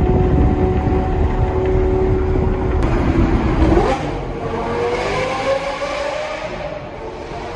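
Lamborghini Gallardo Superleggera's V10 with an aftermarket F1-style exhaust, running at a steady note, then a quick sharp rise in revs about three and a half seconds in, followed by acceleration with a slowly climbing pitch as the sound grows quieter.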